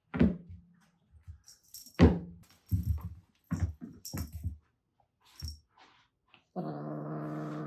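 Kitten playing with a jingling toy: a run of sudden knocks and rattles, two of them with a quick falling whoosh. A steady held chord comes in near the end.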